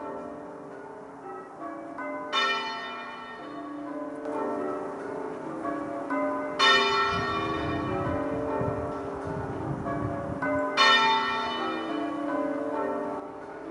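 The half-muffled tenor bell of a church tolling a mourning toll. It strikes three loud blows about four seconds apart, and each blow rings on and hums between strokes.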